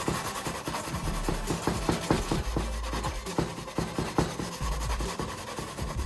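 Sandpaper rubbing back and forth by hand over a plastic surface, in quick repeated strokes, several a second.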